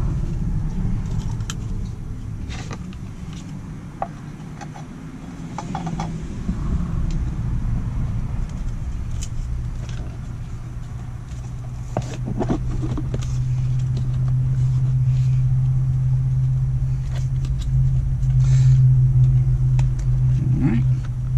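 Plastic heater blower motor and fan housing parts being handled and fitted together, with scattered light clicks and knocks, over a steady low rumble and hum that grows louder about halfway through.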